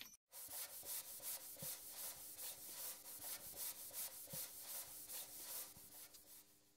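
Faint, rhythmic scratchy noise pulsing about four or five times a second over a low steady hum, fading out near the end: an intro sound effect.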